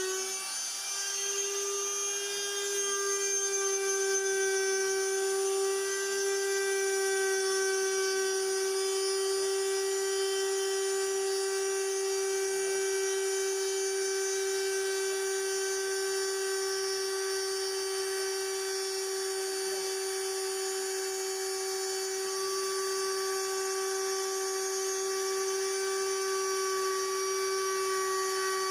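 Spindle motor of a homemade CNC router running with a steady high whine while it cuts a wooden key tag.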